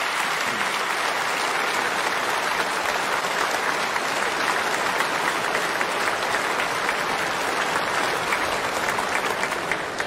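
Steady applause from a large seated audience of several thousand, many hands clapping at once, dying away at the very end.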